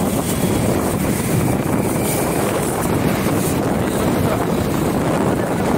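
Wind rushing over the microphone during a motorcycle ride, a loud steady roar of noise with the ride's road noise beneath it.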